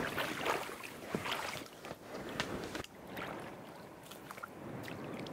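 Water splashing around a small inflatable boat as a man drops into it in the shallows and pushes off with a kayak paddle. A loud splash comes right at the start, then several smaller splashes and drips from paddle strokes.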